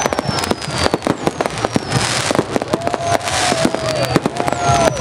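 Many fireworks going off at once: a dense, irregular stream of bangs and crackling pops, with two short hisses and high whistles gliding down in pitch.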